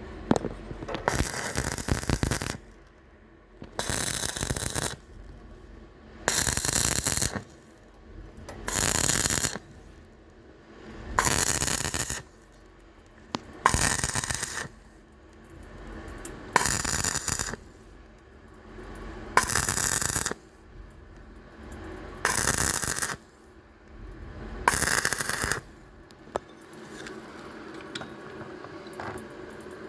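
Electric arc welding: about ten short welds, each a burst of arc noise lasting about a second, spaced roughly two and a half seconds apart, with the last few seconds quieter.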